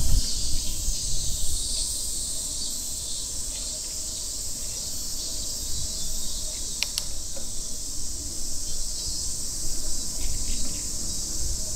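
Chorus of summer cicadas buzzing steadily and high, with a low rumble underneath and two short clicks about seven seconds in.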